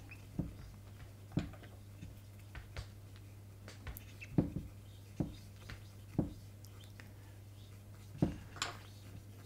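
Cotton swab with rubbing alcohol scrubbing the carbon track of a Vitamix blender's speed-control potentiometer board, cleaning off dirt that causes a bad contact. The sound is faint rubbing, with scattered light clicks and taps about once a second.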